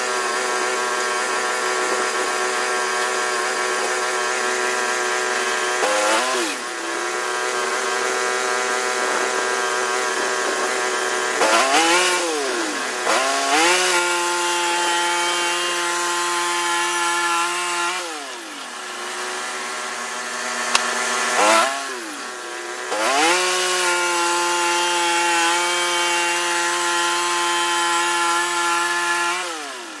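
Engine of a Norwood LumberPro portable band sawmill running at speed while the band blade cuts through a red pine log. The engine speed dips and recovers a couple of times, drops to a slower, quieter running for a few seconds after about 18 seconds, then picks back up, and falls off again right at the end.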